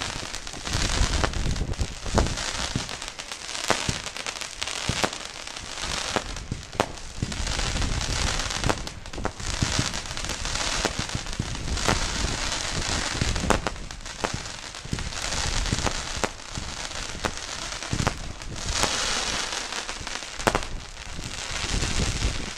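Lidu Crackling Cross, a 25-shot 24 mm firework battery (cake), firing: a steady run of launch thumps, one after another about every second, under dense crackling from the bursting stars.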